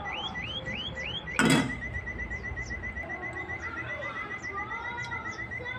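A fast, even train of high chirps keeps going throughout, first as rising chirps about three a second and then as quicker ones about eight a second. A single sharp thud about a second and a half in is the loudest sound.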